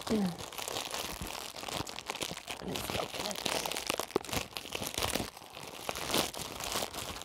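A small plastic packaging bag crinkling and tearing as it is opened by hand, a dense run of irregular rustles and crackles.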